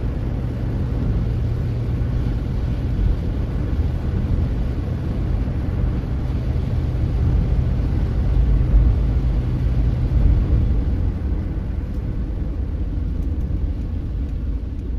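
Car driving, heard from inside the cabin: a steady low rumble of engine and tyres, with a low hum under it that fades about ten seconds in.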